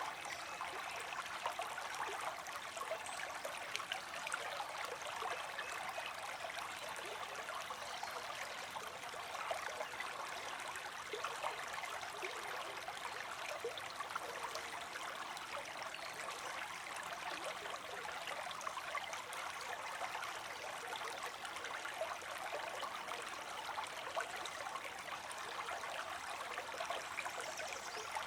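Small creek streaming and trickling over stones, a steady babbling of water.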